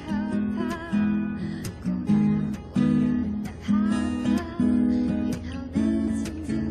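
Music: acoustic guitar strumming chords in a steady rhythm.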